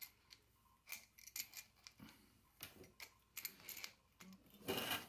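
Faint scattered clicks and light metallic ticks of an adjustable wrench on the hex compression nut of a braided stainless toilet connector hose, tightened onto the bidet's plastic threaded inlet, with a slightly longer rattle just before the end.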